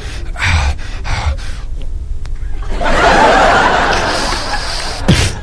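Studio audience laughing, loudest a little after halfway, with a short falling whistle-like sound effect near the end.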